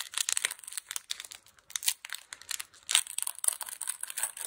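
Foil wrapper of a Pokémon trading card booster pack crinkling and tearing as it is ripped open by hand: a busy, irregular crackle throughout.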